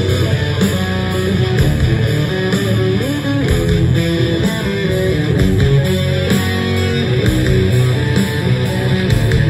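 A rock band playing live: an electric guitar plays a moving melodic line over bass guitar, with a steady full low end.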